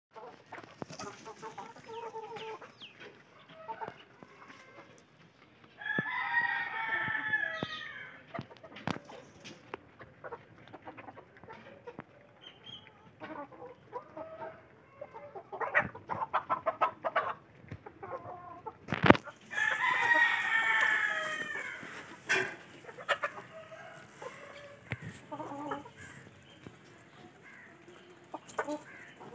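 A rooster crows twice, about six seconds in and again about twenty seconds in, each crow lasting about two seconds, while hens cluck and call in short bursts in between. A sharp knock comes just before the second crow.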